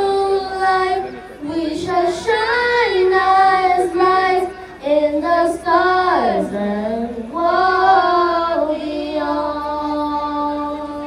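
Two young girls singing into handheld microphones, holding long notes with vibrato, with a sweeping drop in pitch about six seconds in; the last note fades out near the end.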